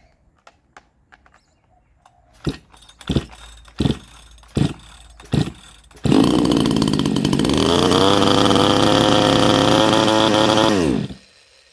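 Chinese 62cc two-stroke chainsaw engine, fitted with a hollowed-out muffler, being pull-started on choke: five sharp pops on successive pulls, then it catches and runs steadily for about five seconds before cutting out suddenly.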